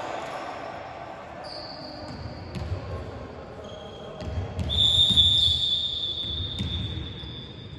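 Volleyball rally in a large sports hall: the ball thuds off players' arms and hands several times, loudest about five seconds in, with players' calls. A steady high-pitched tone sets in about halfway and holds to the end.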